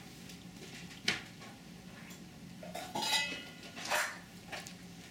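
A small bowl knocked and clinked against a plastic high-chair tray by a toddler's hands: one sharp knock about a second in, then a cluster of clinks and knocks around three to four seconds.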